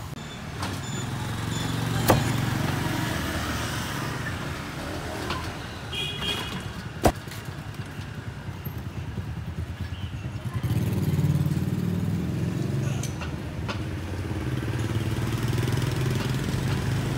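Motorcycle engines running in the street, the low hum swelling about ten seconds in. A cleaver chops sharply on a wooden chopping block twice, about two and seven seconds in.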